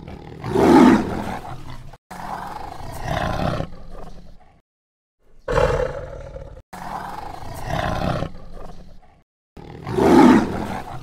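Tiger roaring: about five separate roars, each cut off abruptly into silence before the next. The loudest come about a second in and near the end.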